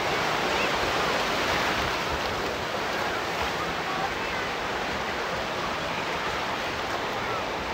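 Sea surf breaking and washing up the beach, a steady rush of noise, with faint voices of a crowd of bathers.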